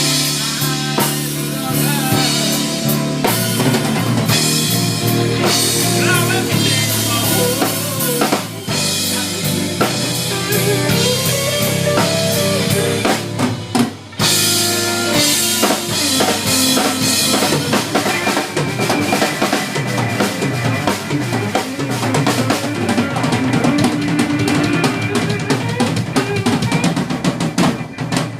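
Band music with a drum kit playing, bass drum and snare prominent, and a brief break about 14 seconds in.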